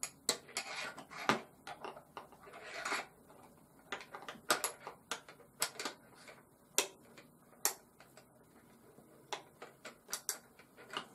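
Irregular clicks, knocks and short scrapes of hard parts being handled and pushed together, as someone tries without success to fit and close a part of a wet brass tumbler.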